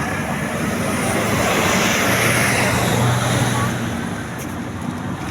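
Tour bus engine running with a low steady hum and the rush of road noise, swelling to a peak two to three seconds in and then easing, under the chatter of people.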